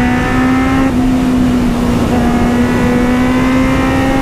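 Kawasaki Z800 inline-four motorcycle engine pulling under throttle on the road, its pitch rising slowly, with a short break about a second in, over wind rush.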